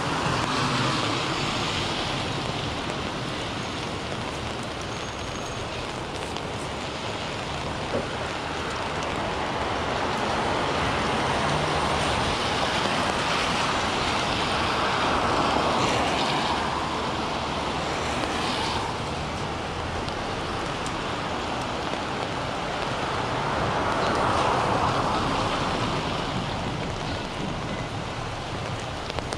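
Rain falling on an umbrella overhead, with traffic passing on the wet street: the hiss of tyres on wet pavement swells and fades as vehicles go by, loudest about halfway through and again near the end.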